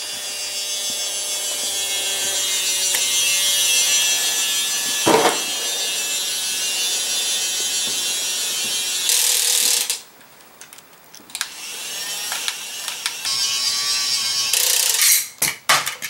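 Fast Lane Mega Crane toy's small electric motor and plastic gears whirring steadily as it winches its hook load. The whine stops briefly about ten seconds in, then runs again, with a few sharp clicks near the end.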